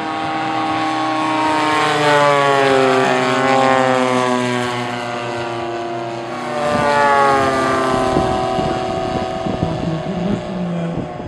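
Propeller engines of two radio-controlled scale warbird model airplanes droning as they fly past. The engine note falls in pitch as each one goes by, once about two seconds in and again about six seconds in.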